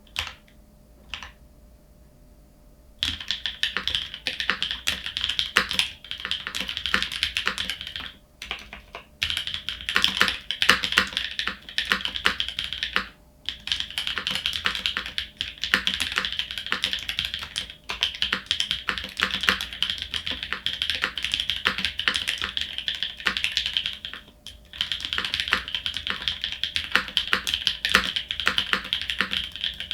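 Fast typing on a mechanical keyboard, a polycarbonate-cased TKL with NovelKeys Cream linear switches and GMK keycaps: a few single key presses, then runs of quick keystrokes lasting several seconds each, broken by brief pauses.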